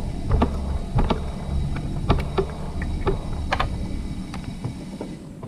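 Small metal parts of a Consew 226 industrial sewing machine's hook area clicking and tapping as they are handled, about a dozen irregular light clicks over a steady low rumble.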